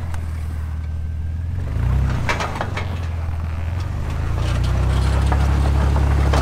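Snowcat engine running with a low hum, rising briefly about two seconds in, then working harder and holding a higher, louder note from about four and a half seconds in as the machine climbs the ramps onto a trailer. A few sharp metal clanks come from its tracks on the steel ramps.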